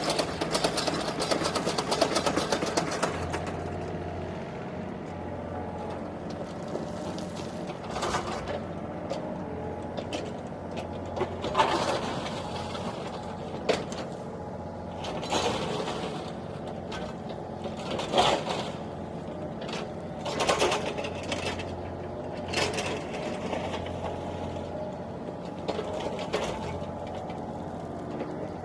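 Mini excavator's diesel engine running, busy and loud for the first few seconds and then steadier. Short louder surges come every two to four seconds as the machine digs.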